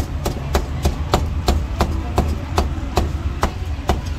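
Meat cleaver chopping crispy roast pork belly on a round wooden chopping block: a steady run of sharp knocks, about three a second.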